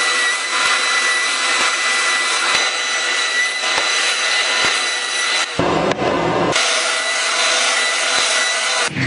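A power tool working wood: a steady, loud, rasping whir with a faint high whine. It gives way to a different, lower sound for about a second just past the middle, then resumes.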